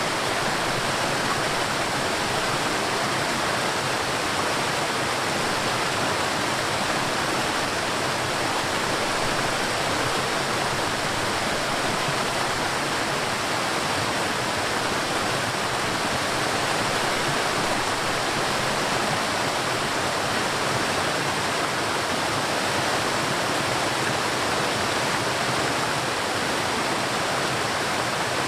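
River water flowing and rushing in a steady, even wash.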